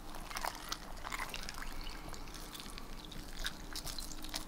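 Faint water lapping and dripping in an ice-fishing hole as a crappie is lowered and held in the water, with light scattered ticks and small splashes.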